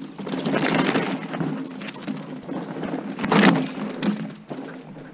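Mountain bikes rolling past on a dry, sandy dirt trail: tyres crunching over grit and leaves, with the bikes rattling and clinking. There are two passes, the louder one about three and a half seconds in, with a kelpie running close by.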